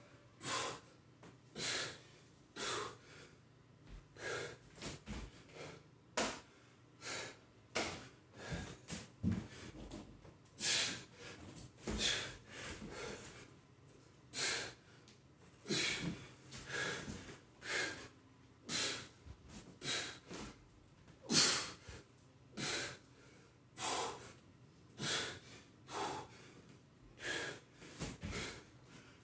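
A man breathing hard under exertion: short, forceful exhalations a little more than one a second, with brief gaps, through a high-rep kettlebell and burpee workout.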